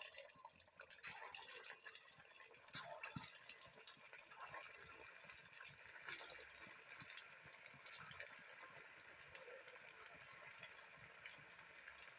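Faint crackling and hissing of a wood cooking fire, with scattered small pops and ticks.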